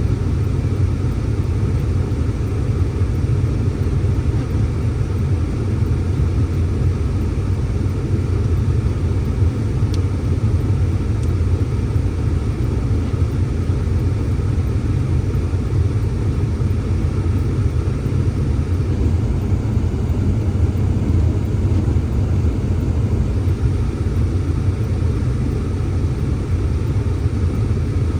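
Blizzard wind, a steady low rumble of wind blowing against the microphone without let-up.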